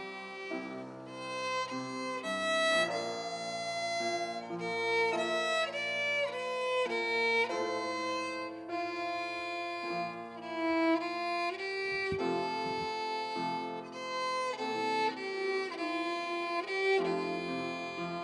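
Violin playing a melody over held lower accompanying notes: an instrumental passage of a worship song.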